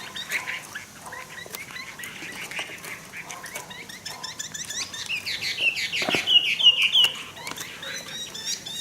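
Caged hwamei (Chinese laughingthrush) songbirds calling and singing. Soft scattered calls come first, then loud, rapid warbling phrases from about five seconds in.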